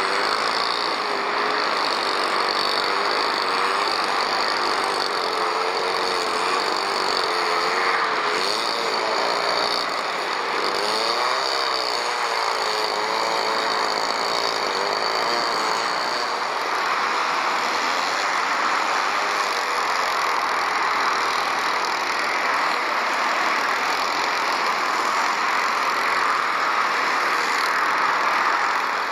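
Steady outdoor noise of a taxiing Airbus A380's jet engines mixed with road traffic. A faint high whine runs throughout, and a wavering hum fades out about halfway through.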